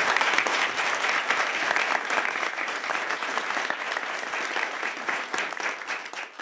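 A group of people applauding; the clapping gradually thins and dies away, fading out at the very end.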